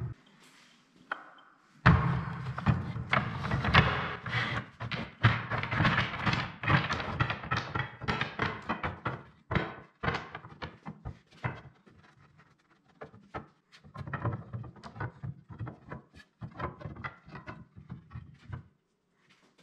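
Ash strips knocking and clattering against each other and the bench as they are laid side by side and pushed into line. Many quick knocks, dense at first and sparser after about ten seconds, stopping shortly before the end.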